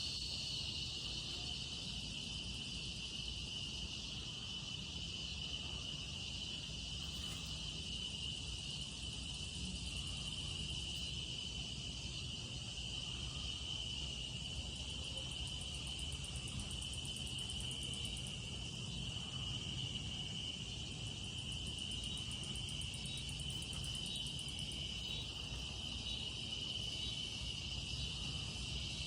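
Crickets and other night insects singing in a steady, unbroken high-pitched chorus, with a faint low rumble underneath.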